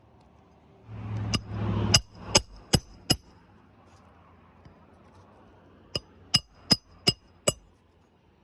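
Hammer driving roofing nails into an asphalt shingle: two runs of five sharp, ringing strikes, evenly spaced about 0.4 s apart, with a brief scraping rustle just before the first run.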